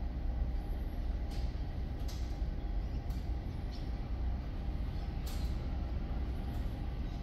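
Steady low machine rumble, like an engine running, with a few faint clicks about a second and a half, two seconds and five seconds in.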